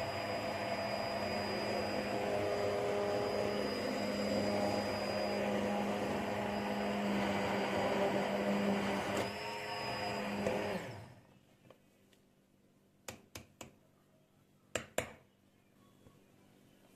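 Immersion hand blender running in a steel pot, puréeing broccoli soup with milk; its motor stops about two-thirds of the way through. A few short light knocks follow.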